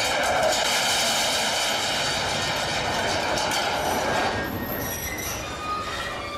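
Heavy iron ball rolling along the steel rails of a scrap-metal machine sculpture's ball run: a steady rolling rumble with high metallic ringing and squeal, easing off about four seconds in.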